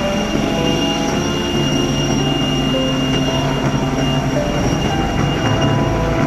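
Leonardo AW139 rescue helicopter hovering close by: a heavy, steady rotor and engine noise with a constant high turbine whine above it.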